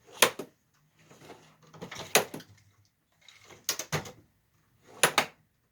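Hard objects being handled: four bursts of knocking and clattering, about a second and a half apart, with some scraping between them.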